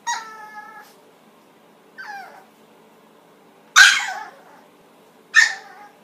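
Chihuahua yelping and barking in protest at the sweater it has been dressed in: four high-pitched outbursts, the second falling in pitch and the third, about four seconds in, the loudest and harshest.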